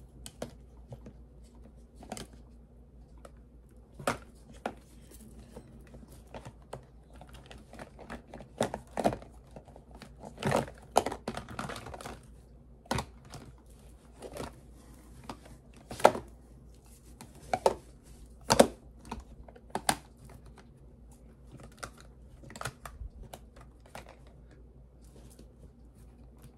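Plastic jars and tubs of cream being handled and set down among other containers in a storage bin: irregular clacks and knocks, with a few louder ones in the second half. A stretch of packaging rustling near the middle.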